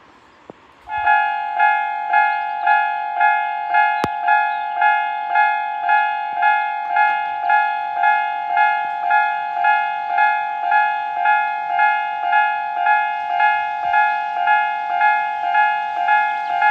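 Japanese railway level crossing's electronic warning bell starts about a second in and rings in an even, steady rhythm of about two strikes a second, signalling that a train is coming.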